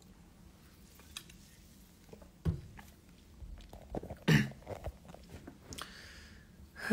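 A man drinking from a plastic water bottle, with faint swallowing and bottle sounds, then a short cough about four seconds in, the loudest sound, followed by a few smaller mouth sounds.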